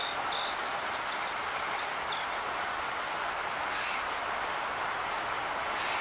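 Steady outdoor background hiss with a few faint, short bird chirps, mostly in the first couple of seconds.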